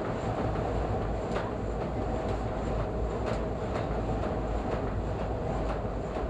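Toronto subway train running through a tunnel, heard from inside the car: a steady rumble with irregular wheel clicks over the rail joints, about one every half second to a second.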